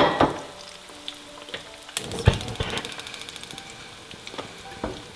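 A sharp knock at the start, then a gas hob's igniter clicking rapidly for about a second and a half as the burner under the wok lights, with a thump about two seconds in. Oil sizzles steadily in a second frying pan throughout.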